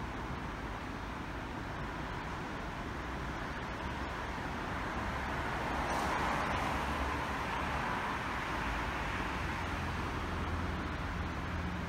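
Steady background hiss of an empty railway station platform, with a low hum underneath and a gentle swell about halfway through.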